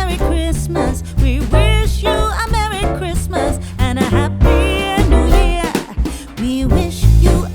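Background music: an upbeat song with a sung vocal line over a pulsing bass beat.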